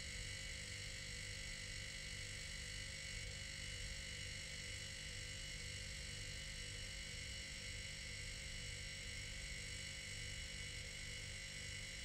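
Old refrigerator running, its compressor giving a steady hum with a high whine over it.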